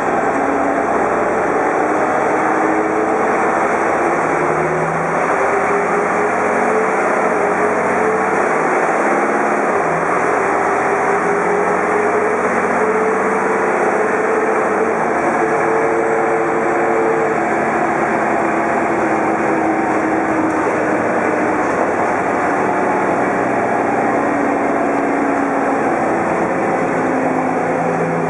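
Menarini 201/2 city bus heard from inside the passenger cabin while driving: the engine runs steadily under a thick road and cabin noise, its pitch climbing and falling several times as the bus speeds up and slows.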